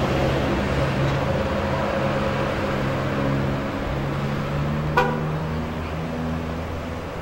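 Steady low hum of car engines and road noise in traffic, with one short sharp beep about five seconds in.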